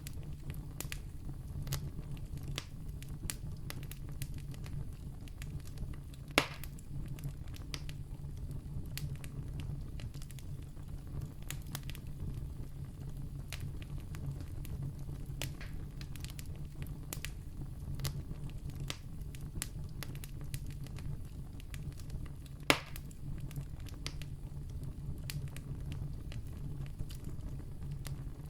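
Wood campfire crackling: frequent sharp snaps and ticks from the burning wood, with two loud pops, one about six seconds in and one about twenty-three seconds in, over a steady low hum.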